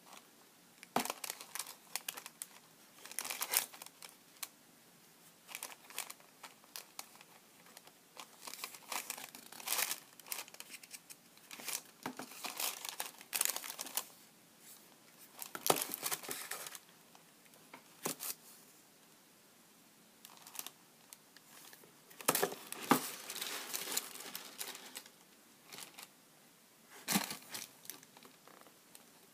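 Tissue paper crinkling and rustling in irregular bursts as a canvas sneaker is handled in its shoebox and lifted out.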